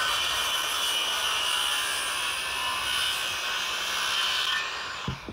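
Electric power saw cutting through a 2x4 along a marked angle line, running steadily, then fading out near the end.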